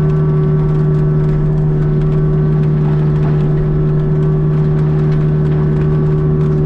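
Heavy equipment's diesel engine running at a steady, constant speed, heard from inside the cab as an even, unchanging hum.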